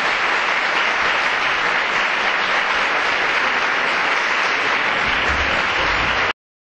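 Audience applauding steadily at the close of a lecture; the applause cuts off abruptly near the end.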